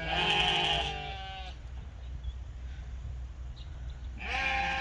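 Sheep bleating: one long bleat that fades out about a second and a half in, then another that starts near the end.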